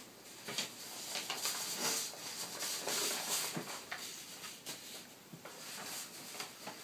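Stiff paper cards being handled on a table: rustling and sliding with a scatter of light taps and clicks.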